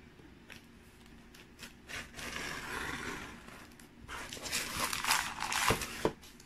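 Knife cutting through a sheet of crisp baked fathead cracker on parchment paper: faint ticks at first, then scraping and paper rustling that grows louder in the second half as the sheet is shifted, with two dull knocks near the end.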